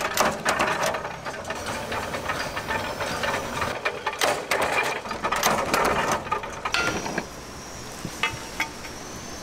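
Factory machinery clattering with quick irregular knocks and clicks, from a mechanical press running. About seven seconds in it drops to a quieter steady background with a faint high whine.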